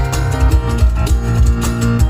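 Live instrumental music: piano played over cajon and tambourine, with rapid percussive hits throughout.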